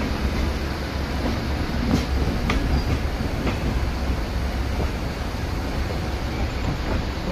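Passenger train running on the track: a steady low rumble with a few sharp clicks of wheels over rail joints in the first half.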